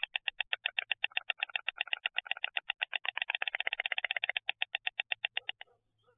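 White stork clattering its bill: a rapid, even clacking of about nine strokes a second that stops abruptly near the end.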